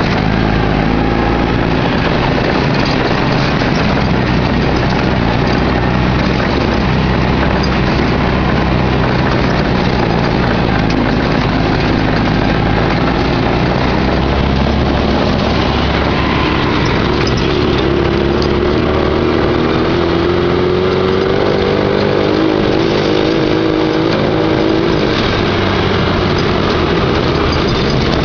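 Off-road buggy's engine running, heard from on board as it drives a rocky trail, with the engine note climbing gradually past the middle.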